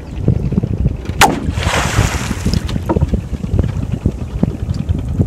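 A long wooden pole slapped hard onto the water surface: a sharp smack about a second in, then a second of splashing spray and a smaller smack a little later. The water is beaten like this to frighten fish so they run into the set net. Wind rumbles on the microphone throughout.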